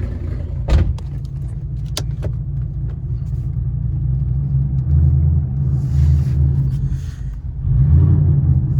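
A 1995 Ford Mustang GT's 5.0 V8 running loud through over-axle exhaust pipes with no resonators, a deep steady drone that swells louder twice. Two sharp clicks sound in the first two seconds.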